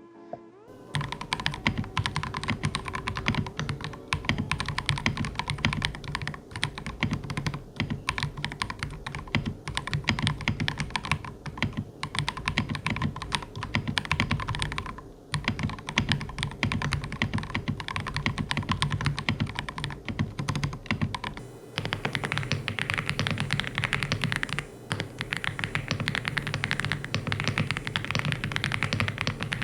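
Continuous fast typing on a mechanical keyboard, the Akko 5075S with CIY Naraka switches and PBT keycaps. The switches have a deeper, more muted keystroke than a sharp clack. About 21 seconds in, the character of the keystrokes changes and stays that way.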